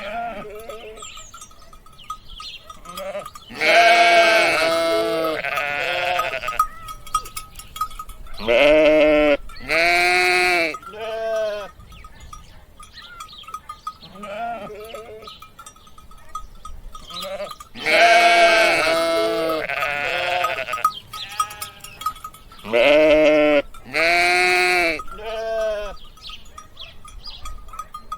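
Sheep bleating, a run of loud, wavering bleats with quieter ones between them; the same run of bleats comes round again about halfway through.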